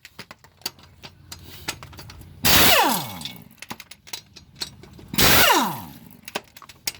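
Impact wrench fired twice in short bursts, each followed by a whine that falls in pitch as the motor winds down, with small metallic ticks and clicks between the bursts: bolts being loosened off the back of a truck engine.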